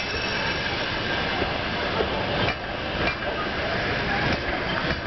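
Passenger train coaches rolling past, a steady rumble of steel wheels on the rails with a few sharp knocks as the wheels cross rail joints.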